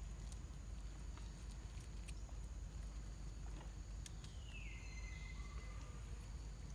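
Forest ambience: a steady low rumble with a faint high steady tone above it and scattered small clicks, and one call about four and a half seconds in that slides down in pitch and then holds for about a second.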